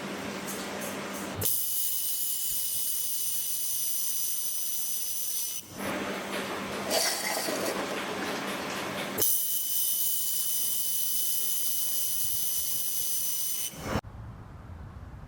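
Handheld laser welder working: a loud steady hiss with a thin high whine, in two stretches of about four seconds each. Between them comes a duller rushing noise, and near the end the sound drops abruptly to a quiet low hum.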